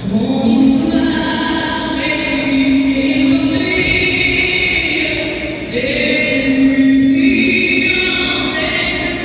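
Music track with a choir singing long, held notes.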